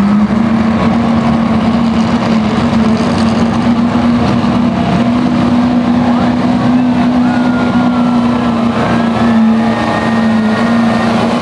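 Chevrolet Silverado diesel pickup pulling a weight-transfer sled, its engine held at high revs under heavy load. The engine pitch stays steady, with a faint high whine over it.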